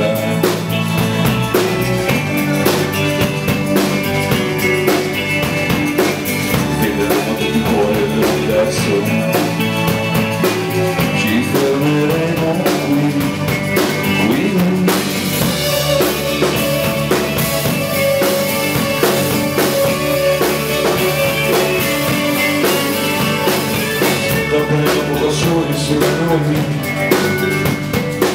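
A live rock band plays an instrumental passage of a song on drum kit and electric bass, with a steady beat. About halfway through, the high end grows brighter and fuller.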